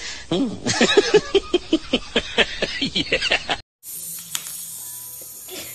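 Rapid, breathy laugh-like huffs, several a second, each a short note falling in pitch; they cut off suddenly about three and a half seconds in, leaving quiet room sound with a few faint clicks.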